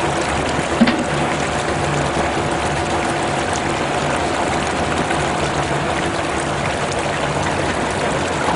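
Drainage pump discharge: muddy water rushing steadily down a channel in the mud over a steady machine hum, with one short knock about a second in.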